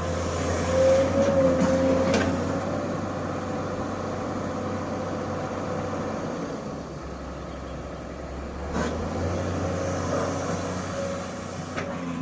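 Sany excavator's diesel engine running steadily under load, with a higher whine over it that is loudest in the first couple of seconds and fades, swelling again later. Three sharp knocks: about two seconds in, past the middle, and near the end.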